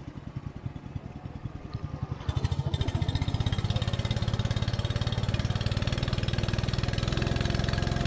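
Long-tail boat engine running with a fast, even pulsing beat. It gets clearly louder about two seconds in and then holds steady.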